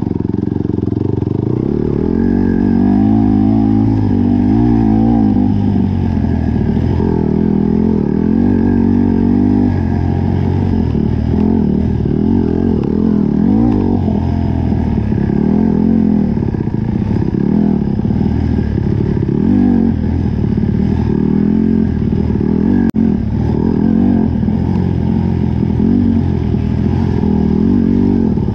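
Dirt bike engine running hard, its pitch constantly rising and falling as the throttle is worked through the trail, with one sharp knock about 23 seconds in.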